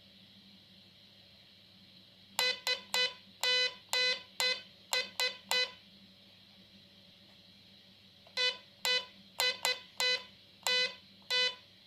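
Morse-code tone from a hobby-kit tone-modulated AM transmitter, keyed by hand and heard as a buzzy beep at one steady pitch: three short, three long, three short beeps spelling SOS. After a pause of about three seconds comes a second, less even run of beeps.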